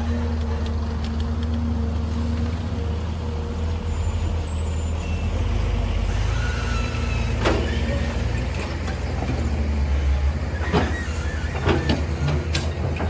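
Heavy machine's engine running with a steady low hum, with several sharp clanks in the second half.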